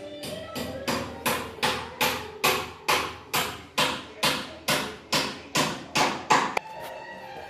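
Background music with a steady percussive beat, about two and a half sharp strikes a second over held tones; the beat stops near the end.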